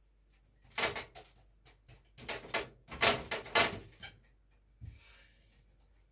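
Baking paper crinkling and rustling in a quick run of bursts as a hand presses a round of dough flat on a paper-lined tray. A single soft knock with a brief brushing sound follows near the end.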